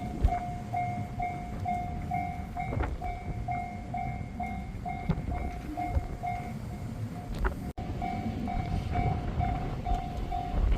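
Japanese level-crossing warning bell ringing in a steady rapid pulse, about three rings a second, over a low rumble.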